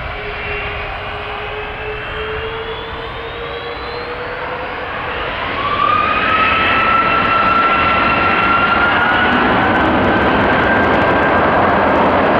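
Four jet engines of a Boeing 747-400 freighter at take-off thrust during the take-off roll: a steady loud roar with whining tones that slowly rise in pitch. About six seconds in it grows louder and a new, higher whine comes in.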